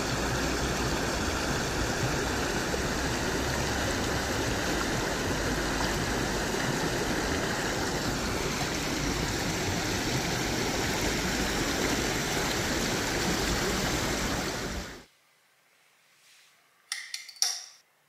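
Shallow stream rushing over rocks and around stone stepping stones, a steady water noise that fades out about fifteen seconds in. A couple of faint knocks follow near the end.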